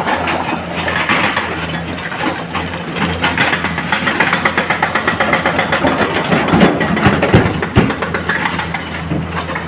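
Excavator's diesel engine running at work, with a dense rapid clatter through the middle and a few heavy low thumps near the end.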